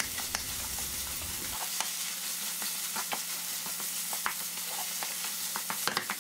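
Minced meat with onion, egg, and pepper and tomato paste sizzling as it fries in a nonstick pan. It is stirred with a spatula that scrapes and clicks against the pan now and then.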